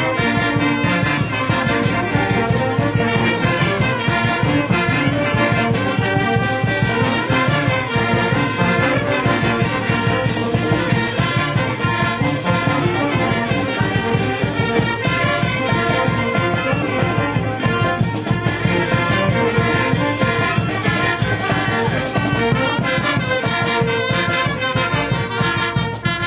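A brass band with trumpets and saxophones playing a lively dance tune with a steady beat.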